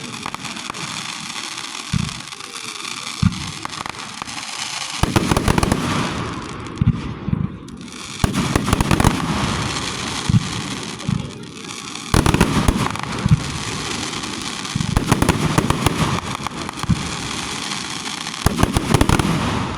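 Fireworks going off: a steady crackle with two single thumps in the first few seconds, then dense volleys of rapid bangs every few seconds.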